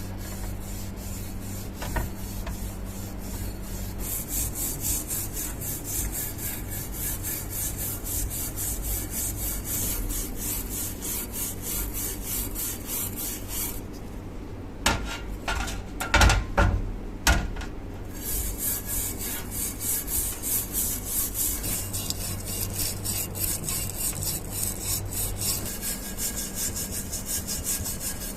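Hand filing or rasping strokes on the axe, scraping back and forth at about two strokes a second. The strokes pause about halfway through for a few sharp knocks, then go on.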